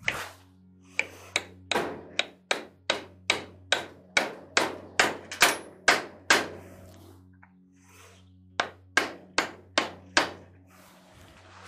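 Hammer blows on a steel socket extension used as a punch, driving the rotor-and-gear assembly out of the back of an Eaton M90 supercharger's aluminium case: a run of sharp metallic strikes about three a second, a pause of about two seconds after six seconds, then a second run of strikes.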